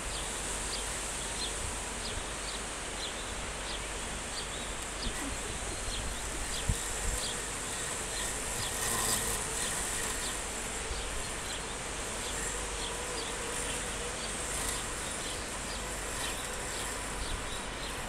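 Robotic lawn mower's electric motors giving a steady, buzzing hum as it drives across the grass, the pitch wavering slightly as it works, with short high chirps repeating over it.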